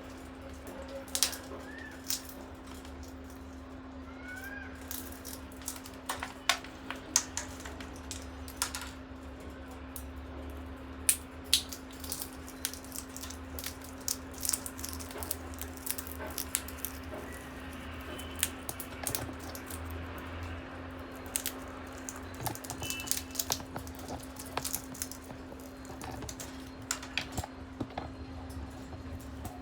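Parrots cracking peanut shells with their beaks: irregular sharp cracks and clicks, with a few faint short chirps, over a steady low hum.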